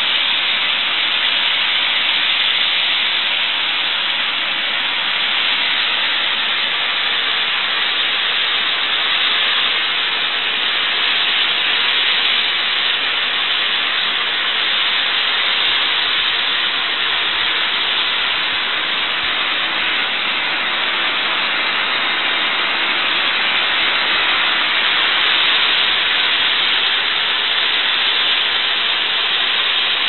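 Snowmaking lance, a tall pole-mounted snow gun, blasting water and compressed air into a plume of artificial snow: a loud, steady hiss.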